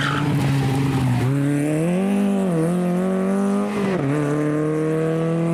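Škoda 120 S rally car's engine revving hard under acceleration, its pitch climbing, with a brief dip about two and a half seconds in and a drop at about four seconds as it shifts up a gear before climbing again.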